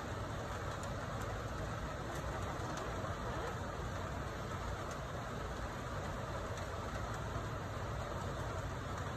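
Steady low rumble with a hiss over it, like an engine or machine running without a break. Faint light clicks come through now and then.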